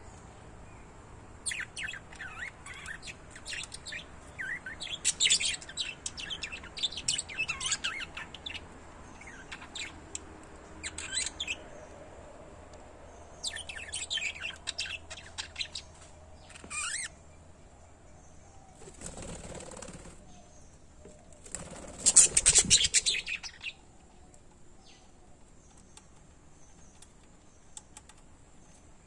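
Small pet parrots chirping in quick clusters of high chirps through the first half. Later come two louder rustling bursts, the second the loudest sound of all.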